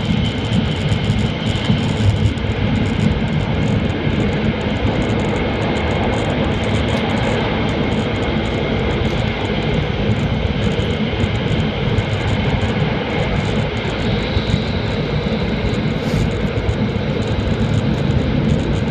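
Hokuriku Shinkansen train heard from inside the passenger cabin at running speed: a steady, deep rumble of wheels and air, with a few faint steady high tones over it.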